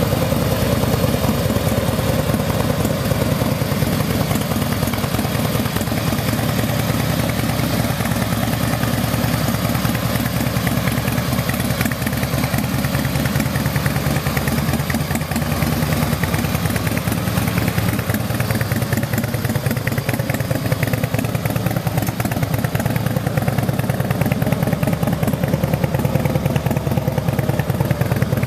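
A 2006 Harley-Davidson Screamin Eagle Fat Boy CVO's 103 cubic-inch Twin Cam V-twin idling steadily through its chrome Vance & Hines Big Radius exhaust.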